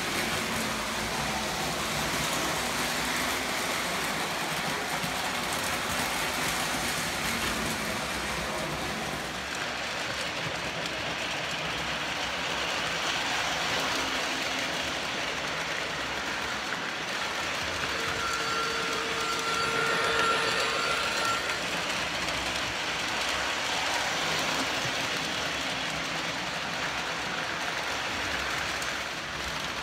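O gauge model freight train running on three-rail tubular track, its wheels and motor making a steady rolling rattle as the cars pass. About two thirds of the way through, a held tone sounds for about three seconds.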